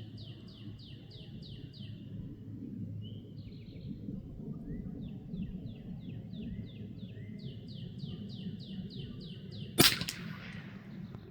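A bird singing long runs of quick, repeated down-slurred chirps, about five a second, with a short pause between runs. Near the end comes a single sharp shot from a Hatsan Escort .22 LR rifle, the loudest sound, followed by a brief echo.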